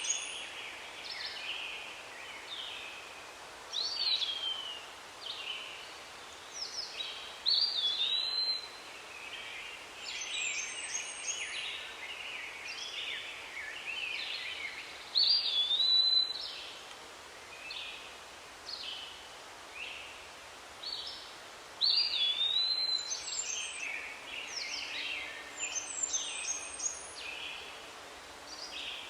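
A songbird singing repeated phrases of clear, looping and sliding whistled notes every few seconds, over a steady background hiss.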